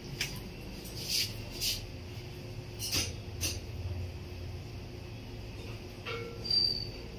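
Hammer knocking on a stainless steel window grill: about six separate sharp metal knocks at uneven intervals, with a short high metallic ring about six seconds in.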